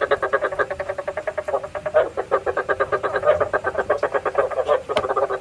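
Frog calling in a fast, even run of croaks, about ten a second, stopping abruptly at the end. It is a lure call for drawing frogs into night traps.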